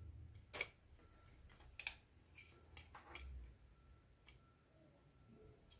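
Faint, scattered sharp clicks and light taps, about half a dozen, from handling a phone charger's small circuit board and plastic housing as it is being taken apart.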